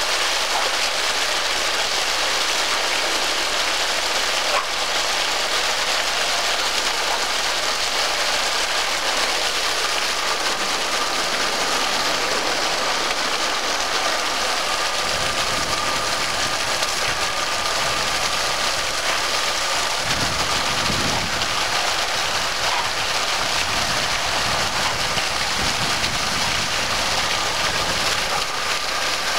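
Water gushing from an open fire hydrant and splashing onto the street pavement, a steady hiss. A low rumble joins about halfway through.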